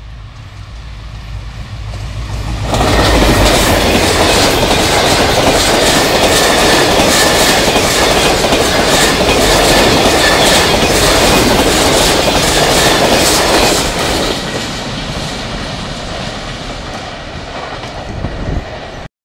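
Diesel-hauled passenger express approaching with a low rumble, then passing at speed. The coaches make a loud rush with rapid wheel clatter over the rail joints, which fades away as the train recedes.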